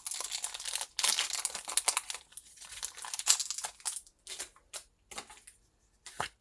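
Foil wrapper of a Pokémon TCG booster pack crinkling as it is torn open and handled: dense crinkling for about four seconds, thinning to a few separate crackles near the end.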